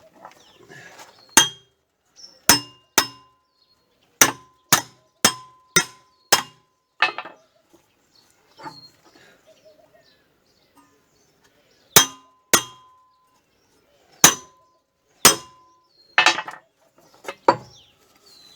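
Sharp metal-on-metal blows on a steel tractor exhaust pipe, about fifteen strikes in irregular groups, several ringing briefly after the hit, as the cut pipe is forced to bend.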